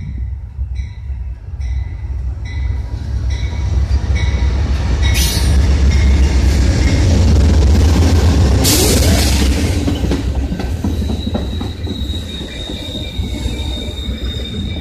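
Amtrak GE P42DC diesel locomotive running past close by: a bell dings about once a second for the first few seconds, and the deep engine rumble builds to its loudest about halfway through. Bilevel Superliner passenger cars then roll past on the rails with a steady high wheel squeal.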